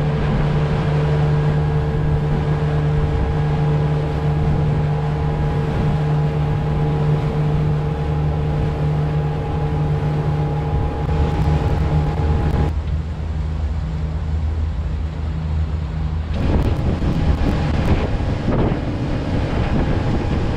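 Pontoon boat's motor running steadily under way, a steady hum with wind rushing over the microphone. The higher part of the hum drops out about two-thirds of the way through, and the wind gets gustier near the end.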